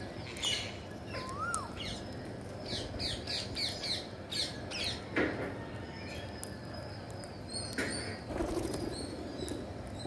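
Rose-ringed parakeet's wings flapping as it takes off, about eight seconds in, with bird calls around it: a single rising-and-falling whistle about a second and a half in, and a quick run of short chirps a few seconds in.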